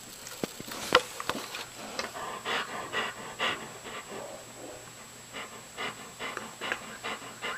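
A dog panting, in short puffs about twice a second, with a few sharp clicks in the first second or so.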